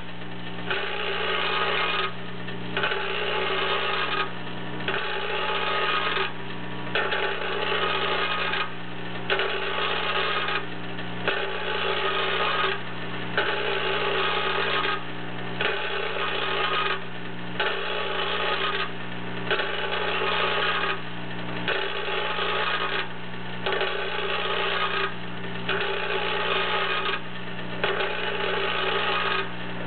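Vibratory parts feeder on a face-select track running with a steady electric hum. Over the hum comes a regular burst of noise about every two seconds, each lasting about a second and a half.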